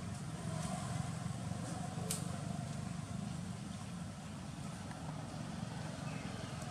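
A steady low motor rumble, like an engine running without a break, with one sharp tick about two seconds in.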